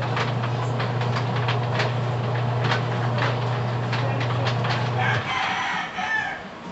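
A steady low hum with scattered sharp clicks, which cuts off abruptly about five seconds in; then a rooster crows.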